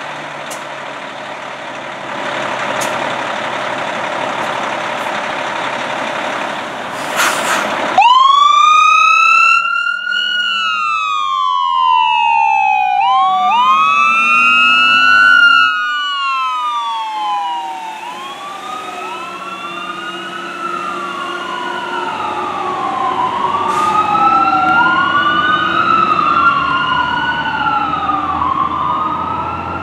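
2007 Spartan Gladiator fire engine's engine running, with a short loud hiss of air about seven seconds in. About eight seconds in its siren starts and wails continuously, each cycle sweeping up quickly and falling away slowly, as the truck responds with lights and siren.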